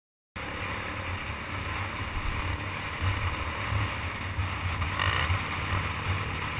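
Dirt bike engine running with a steady, uneven low rumble as the bike rides along, with wind noise on the microphone. It cuts in suddenly a moment in.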